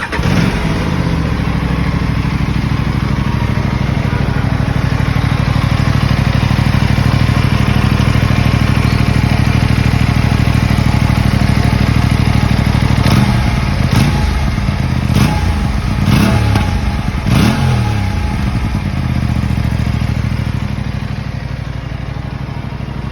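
Aprilia RS 457's parallel-twin engine starting and idling steadily, then revved five times in quick succession about halfway through, each blip falling back with sharp exhaust crackles before it settles back to idle.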